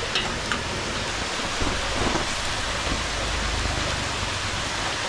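Steady hiss of rushing water, with a few faint clicks and rustles near the start.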